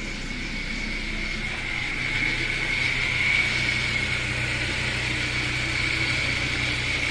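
BMW M43TU four-cylinder petrol engine running steadily, growing a little louder about two seconds in. The hydraulic lifters have just been replaced and are still bleeding. The owner blames the engine's knock on worn connecting-rod bearings.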